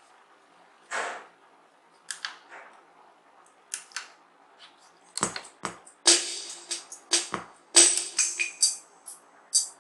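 Korg Pa50SD arranger keyboard playing drum and cymbal sounds through its built-in speakers: separate sharp hits, sparse at first and coming quickly from about five seconds in. The speakers are sounding again after the no-sound repair.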